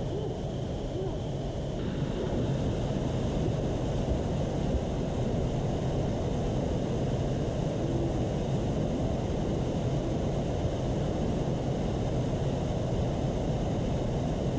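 Steady rushing and rumbling of flowing river water, a continuous low noise with no clear events; its tone shifts a little about two seconds in.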